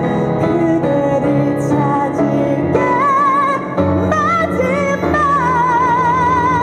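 A woman singing a musical-theatre ballad live into a microphone with piano accompaniment, holding long notes with wide vibrato. A long sustained note begins about five seconds in.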